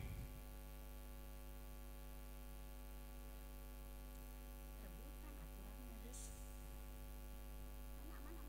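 Steady electrical mains hum, a stack of even buzzing tones, with faint voices in the background now and then.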